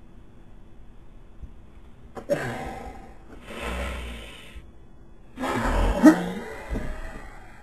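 A person with the hiccups, hiccuping and gasping for breath in three separate short bursts. The loudest is a sharp hiccup about six seconds in.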